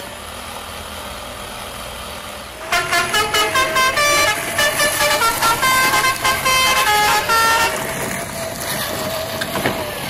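Truck engine running steadily, with a horn sounding a quick string of honks at changing pitches, like a tune, for about five seconds starting near three seconds in. A sharp click comes near the end.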